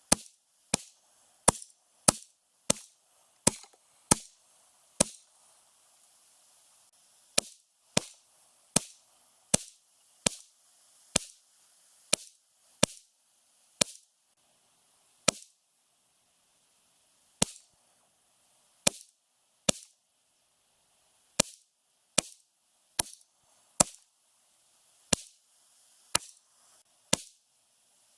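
A Ruger 10/22 .22 LR semi-automatic rifle firing Federal bulk ammunition, about 27 sharp shots in strings, mostly a little under a second apart, with short pauses between the strings.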